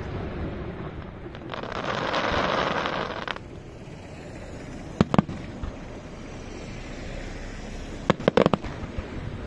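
Aerial fireworks shells. A hiss of about two seconds cuts off suddenly, a sharp double bang comes about five seconds in, and a quick cluster of shell bursts comes near the end.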